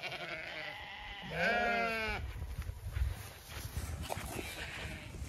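A Zwartbles sheep bleating once: a wavering call about a second long, starting about a second in. A low rumbling noise comes around the middle.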